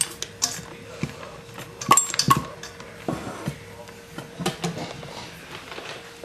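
Wire whisk stirring chocolate chips into pancake batter in a stainless steel mixing bowl, its wires clinking and knocking against the metal side in irregular strokes, the loudest a couple of seconds in.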